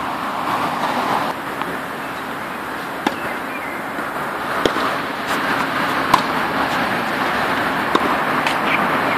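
Sharp pops of a tennis ball being struck by a racquet and bouncing on a hard court during groundstroke practice. They come a handful of times, roughly every second and a half from about three seconds in, over a steady background hiss.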